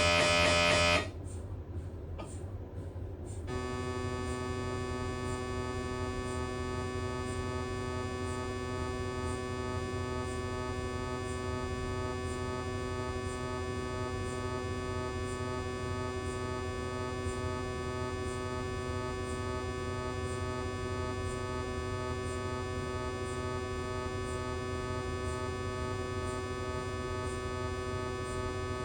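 Siemens Magnetom Spectra MRI scanner's gradient coils: a loud pulsing scan sequence cuts off about a second in. After a short low rumble, a new sequence starts as a steady multi-tone humming drone, with faint regular ticks about once a second.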